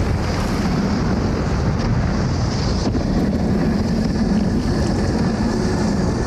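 Luge sled running fast down an ice track, heard from a camera mounted on the sled: a steady, loud rush of the runners on the ice mixed with wind over the microphone.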